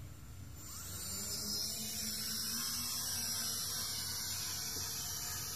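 Hubsan X4 Desire (H502S) quadcopter's small motors spinning up for lift-off, a high drill-like whine that swells about half a second in and then holds steady as it hovers and climbs.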